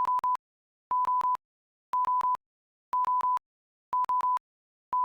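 Electronic timer alarm beeping: a single pitched tone in quick triplets of short beeps, one triplet each second, signalling that the countdown has reached zero.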